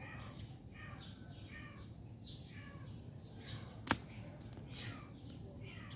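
Faint animal calls repeating about twice a second. One sharp click about four seconds in, as a metal digging blade strikes the soil.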